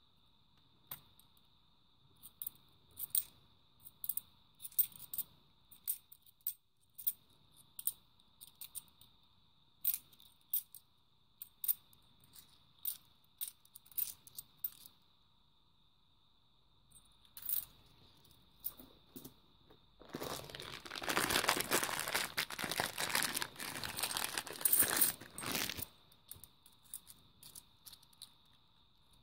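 50p coins clicking and clinking against each other in the hands as they are handled and sorted one at a time, with light sharp clicks. About twenty seconds in comes a loud rustling and crinkling that lasts about six seconds.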